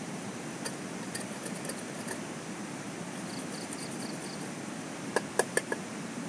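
Eating utensils clinking against dishes: four quick, sharp clinks about five seconds in, with a few fainter clicks earlier, over a steady hiss.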